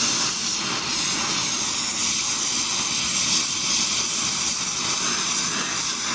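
Blow torch flame burning with a steady, loud hiss as it heats a piece of steel for forging.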